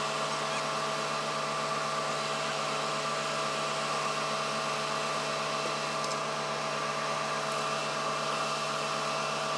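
A steady machine whir: an even hiss with a few steady tones in it, unchanging throughout.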